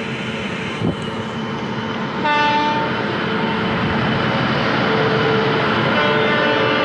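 Indian Railways train horn sounding from about two seconds in, over the steady running noise of trains on the tracks; a short knock just before one second.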